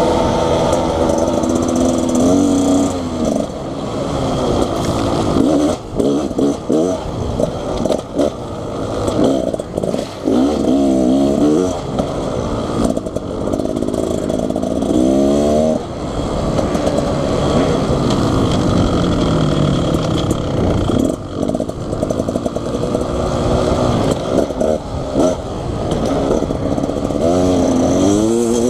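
Beta Xtrainer 300 two-stroke dirt bike engine being ridden on trails, its pitch rising and falling again and again as the throttle is opened and closed.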